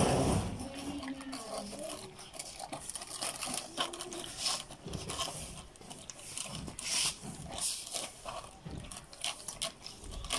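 Three puppies lapping milk from a shallow pan, with a quick, irregular run of wet licking and smacking clicks.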